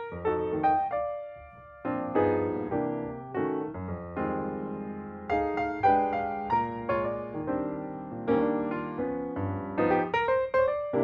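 Piano music: a flowing run of struck notes and chords, each fading after it is played.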